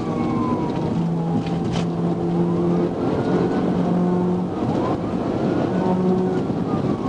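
Police cruiser in a high-speed pursuit: constant loud road and wind noise, with the patrol car's siren wailing underneath in slow rising and falling sweeps.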